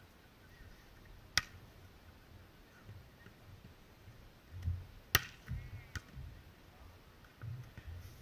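Two sharp smacks of a beach volleyball being hit, about four seconds apart, the second the louder. Low gusts of wind rumble on the microphone.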